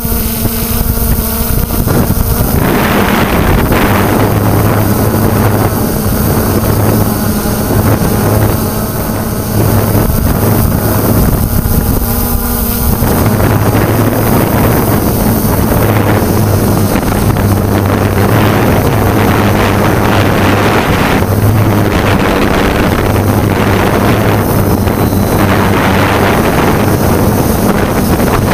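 Drone's motors and propellers running steadily, heard through its onboard camera, with wind rushing on the microphone. The motor pitch shifts in the first few seconds and again about ten seconds in.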